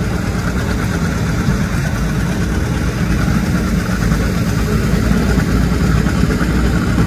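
John Deere tractor engine running steadily under load as it pulls the weight sled down the track, a low rumble that slowly grows louder.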